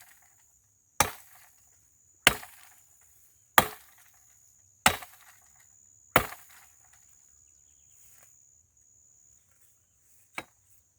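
Wood being chopped with a blade: five sharp blows about 1.3 seconds apart, then one more lighter blow near the end, cutting through a branch for firewood. A steady high-pitched tone runs beneath the first two-thirds.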